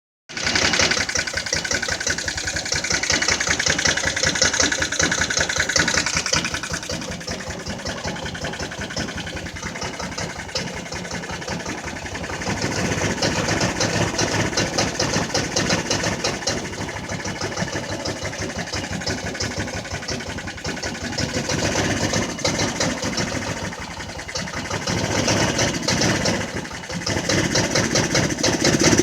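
Jonway Xpressway 250cc scooter engine running after a first round of repairs for a no-start fault, its level swelling and easing several times.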